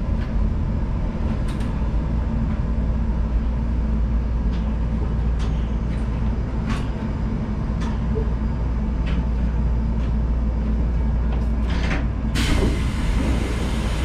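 Mitsubishi 1000 Series suspended monorail car coming to a stop and standing at a station platform, its equipment giving a steady low hum with scattered clicks and knocks. About twelve seconds in, a loud hiss lasts over a second.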